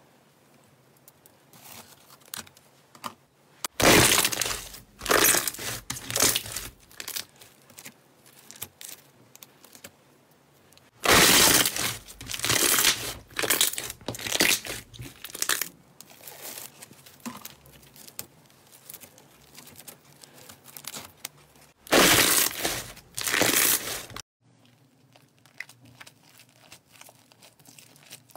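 Crunchy slime being pressed and squeezed by hand, crackling and popping in three loud stretches several seconds apart, with softer sticky clicks in between.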